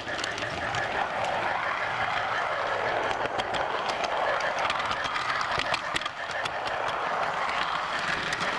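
Garden railway model train running along the track, heard from a camera riding on it: a steady mechanical whir with frequent sharp clicks of wheels over rail joints and points.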